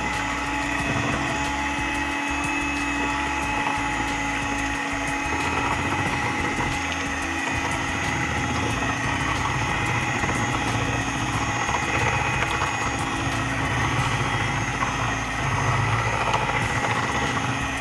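Electric hand mixer running steadily, its twin beaters whisking flour into wet beetroot cake batter, with an even motor whine throughout.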